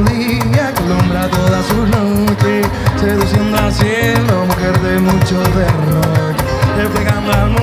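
Live Caribbean funk band playing: electric guitar over a busy hand-percussion rhythm with a steady low line underneath.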